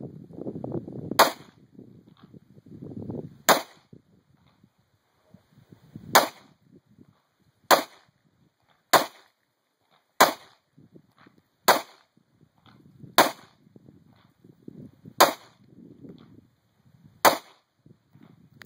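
A Ruger handgun fired in slow, deliberate single shots: ten sharp reports, unevenly spaced one to two seconds apart.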